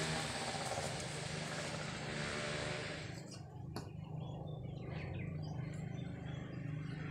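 A steady low engine-like hum runs throughout. For the first three seconds a rushing noise lies over it. About three and a half seconds in comes a single sharp knock, a bolo knife striking a durian's stem.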